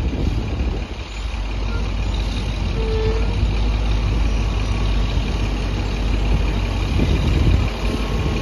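Diesel engine of a large farm tractor packing a corn silage pile, running steadily close by. Its low rumble grows slightly louder near the end as the tractor comes nearer.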